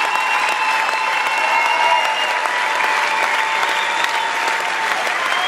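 Circus audience applauding steadily, with a few held high tones above the clapping.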